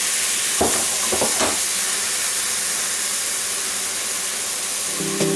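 Meat broth sizzling and bubbling in a hot frying pan around a seared beef fillet, a steady hiss, just after the brandy deglaze. A few light knocks come about a second in.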